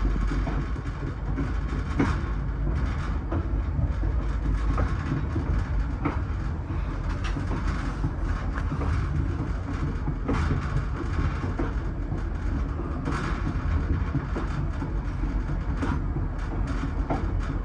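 VIA Rail passenger train running on jointed rail, heard from a sleeping car's vestibule: a steady low rumble with the wheels clicking over the rail joints at irregular intervals.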